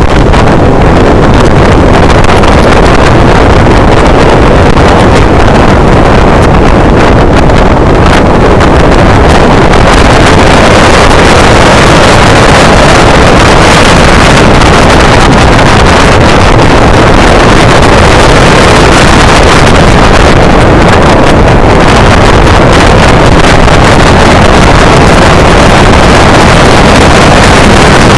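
Motorcycle at speed through bends, heard from a low-mounted action camera: heavy wind noise on the microphone over the engine and tyre noise. It is loud and steady, with no gaps.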